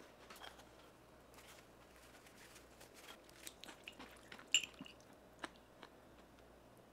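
Faint clicks and light scraping of a metal fork against a ceramic bowl as it cuts into soft baked egg and tomato sauce, with the sharpest click about four and a half seconds in.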